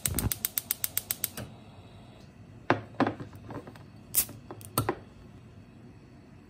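Gas stove igniter clicking rapidly, about eight clicks a second for a little over a second. Then a few separate sharp knocks and clinks as things are set down on a kitchen counter.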